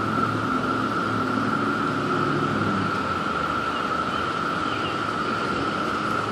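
Steady hiss with a constant mid-pitched hum held throughout, under a fainter low drone that fades out about three seconds in.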